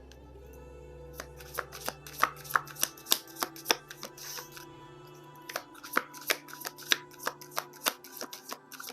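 Tarot cards being shuffled by hand: two runs of quick, crisp snaps, about three a second, with a short pause between them. Soft background music plays underneath.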